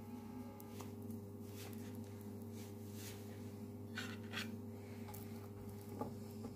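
Bun halves toasting in ghee in a frying pan, with a faint sizzle and a few soft crackles, over a steady low hum.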